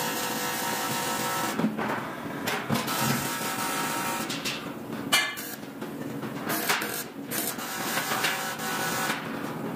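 Aluminium frame parts knocking and clanking as they are handled on a welding table, several separate knocks over a steady machine hum.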